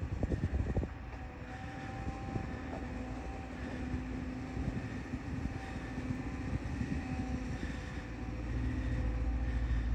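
Caterpillar excavator working, its diesel engine running steadily with a hum that comes and goes over a low rumble. A few low thumps in the first second.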